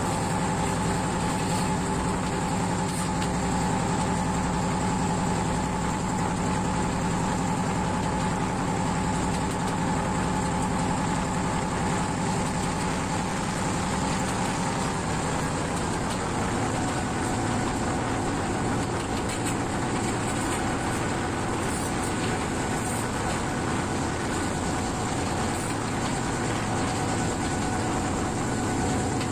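Diesel locomotive running steadily along the line, its engine note holding steady and dropping slightly in pitch about halfway through.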